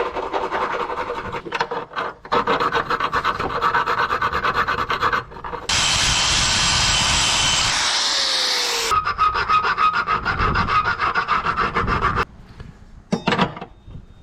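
Round hand file rasping back and forth in a torch-cut slot in a steel mower-deck hanger bracket, in quick repeated strokes. About six seconds in there is a stretch of about three seconds of steadier hissing noise. The strokes then resume and stop a couple of seconds before the end, followed by a brief click.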